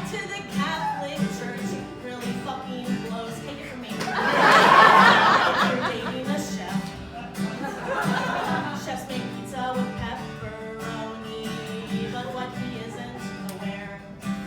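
A woman singing a comic song to acoustic guitar in a live performance. About four seconds in, the audience breaks into a burst of laughter lasting a couple of seconds, the loudest moment.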